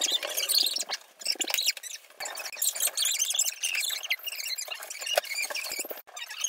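Marker tip squeaking and scratching across paper in quick, irregular strokes as a drawing is coloured in.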